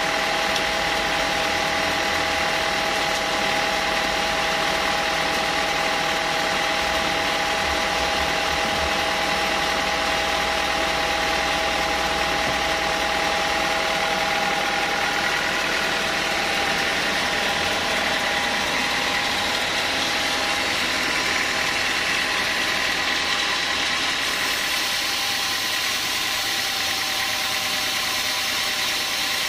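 Band sawmill running steadily, its motor and band blade giving a continuous mechanical whine with a few steady tones, whose pitch shifts partway through.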